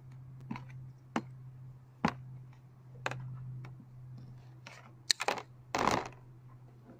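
Wire cutters snipping and stripping a two-core red-and-black cable: a string of sharp clicks and snaps, with a short rasping scrape just before the end, the loudest sound. A low steady hum runs underneath.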